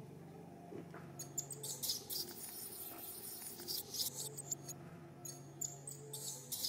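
Background music: sustained low notes with bursts of high, rattling percussion coming in about a second and a half in.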